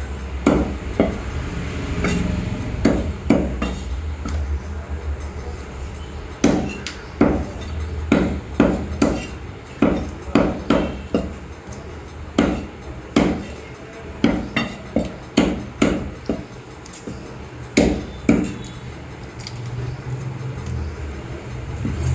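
Meat cleaver chopping raw chicken on a wooden tree-trunk chopping block: repeated sharp chops, one or two a second, with a few short pauses, over a steady low hum.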